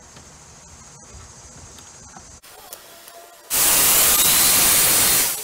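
Corded jigsaw with a scroll blade cutting half-inch MDF: a loud, harsh cutting noise that starts abruptly about three and a half seconds in and stops just before the end.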